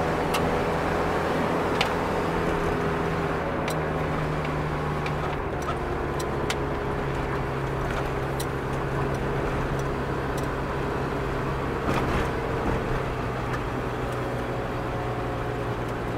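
A motor vehicle running steadily: a low engine hum that changes slightly about four seconds in, with a few scattered sharp clicks.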